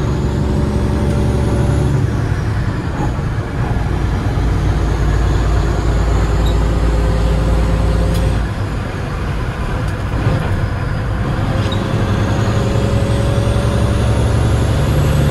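Big cam Cummins inline-six diesel of a 1989 Peterbilt 379 pulling the truck down the road, heard from inside the cab. The engine note dips briefly about eight seconds in, then builds again with a rising whine near the end.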